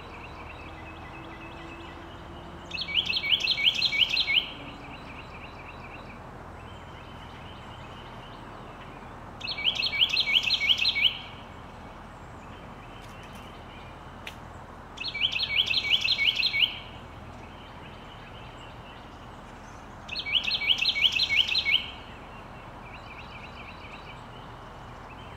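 Carolina wren singing: four bouts of a rapidly repeated phrase, each about two seconds long and spaced about five to six seconds apart.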